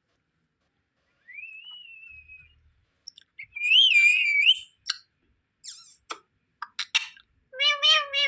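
Pet parrot whistling. A faint rising whistle comes first, then a loud warbling whistle about four seconds in, followed by sharp clicks and chirps and a short chattering call near the end.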